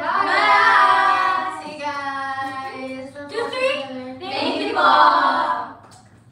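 Several young women singing together in long held notes, breaking off near the end.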